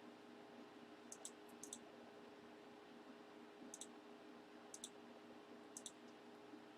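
Faint computer mouse clicks in quick pairs, five pairs at uneven gaps of about a second, over a low steady room hum.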